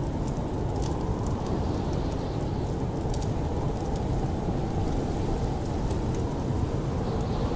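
Steady low rumble of snowstorm wind, with irregular sharp crackles and pops from a burning wood fire scattered over it.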